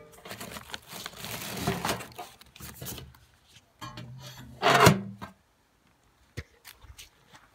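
Paper maps and pamphlets rustling and rubbing as a hand sorts through them inside a metal mailbox, followed by a loud clank about five seconds in as the box's metal door is shut.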